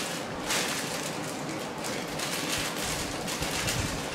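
Clear plastic bag crinkling and rustling as it is handled, a dense, steady run of crackles.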